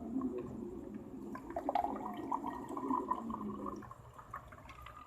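Liquid being poured into a glass or cup, with a pouring tone that shifts in pitch as it fills, and small clinks.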